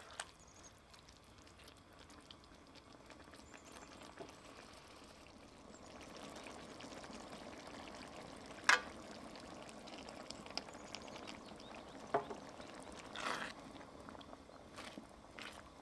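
Heavy cream poured into a simmering eggplant and tomato sauce in a stainless steel wok, with a spatula stirring and knocking against the pan. One sharp knock about halfway through is the loudest sound, with two smaller ones a few seconds later.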